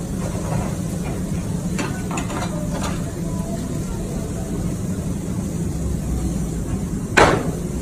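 Steady low hum of a kitchen's extraction hood and grill, with a few light clicks and one sharp knock near the end.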